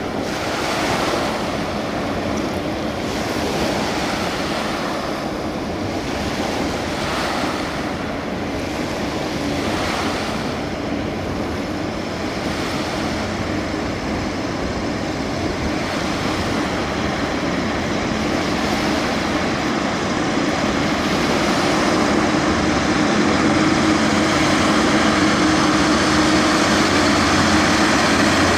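Small waves washing on a shingle shore, under the drone of an approaching Griffon 12000TD hovercraft's engines and ducted propellers. The hovercraft's steady hum grows louder through the second half as it nears the beach.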